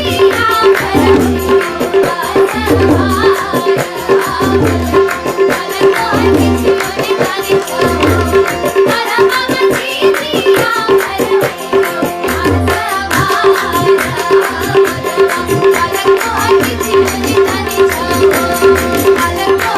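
Maithili jhijhiya folk song: a voice singing over tabla, with a steady, evenly repeating percussion stroke and deep bass drum strokes every second or two.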